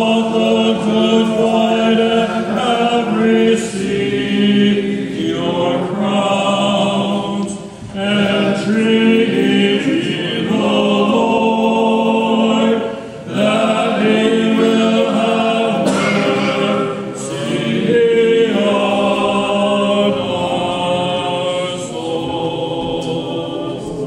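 Orthodox church choir singing a liturgical hymn a cappella, holding sustained chords in long phrases with short breaths between them.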